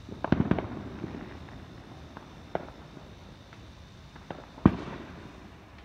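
Fireworks going off: a quick string of sharp pops in the first second, a single bang near the middle, and the loudest bang about three-quarters of the way through, with scattered fainter pops between.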